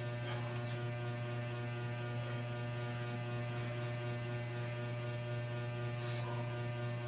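Steady electrical hum, a low drone with many even tones stacked above it and a faint pulsing high tone, holding at one level throughout; a couple of faint soft noises come about a third of a second in and about six seconds in.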